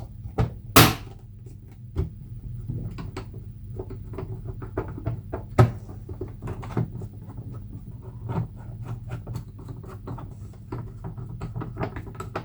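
Plastic housing of a VW Polo instrument cluster being handled and fitted back together: a string of irregular clicks and knocks, with louder snaps about a second in and about halfway, over a steady low hum.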